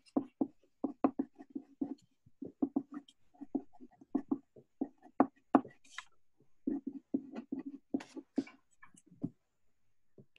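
Handwriting on paper: an irregular run of short scratchy strokes and taps, heard over a video call, that stops shortly before the end.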